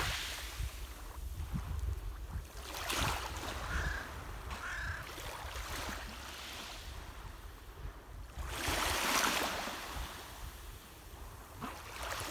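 Small waves washing on a pebble shore, with wind rumbling on the microphone. Two short bird calls, crow-like caws, about four seconds in.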